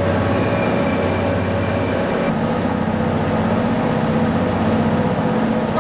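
Steady mechanical hum from a stationary blue-train sleeper at the platform, several low tones held without change: the train's onboard equipment running while it stands.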